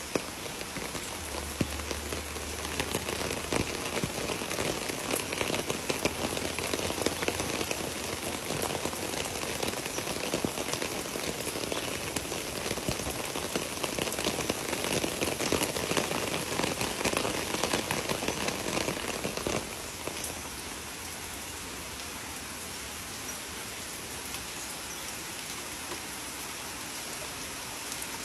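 Rain falling, a dense patter of drops. It is heavier for most of the stretch, then drops off sharply to a quieter, even hiss about twenty seconds in.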